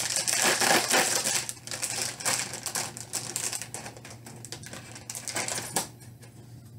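Clear plastic bag crinkling as the bagged plastic parts runner of a Gundam model kit is handled. Loudest in the first two seconds, then thinner, with one sharp click near the end.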